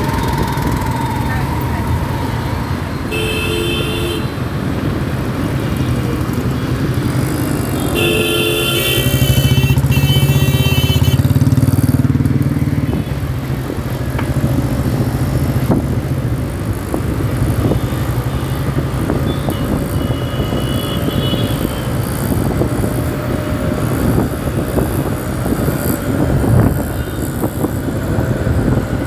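City road traffic heard from a moving motorcycle: steady engine and road rumble. Vehicle horns honk about three seconds in, again several times around ten seconds in, where the rumble is loudest, and briefly near twenty seconds.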